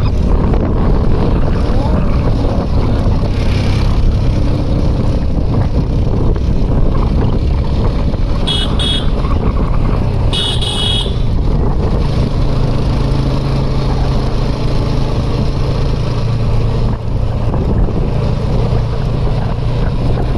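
A vehicle's engine running steadily while travelling along a road, with wind rushing over the microphone. A horn gives two short beeps about nine and eleven seconds in.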